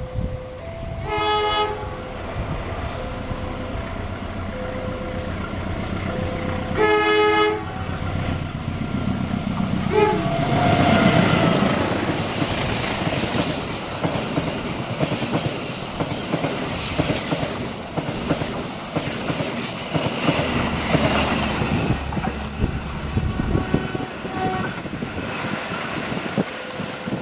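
A railway level-crossing warning chime alternates between two tones while a train horn sounds twice, about a second in and again about seven seconds in. From about ten seconds the train passes close by, its wheels rumbling and clattering over the rails, then fading near the end.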